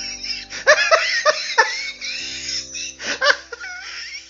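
People laughing in short repeated bursts over steady background music, with some high, wavering squeals mixed in.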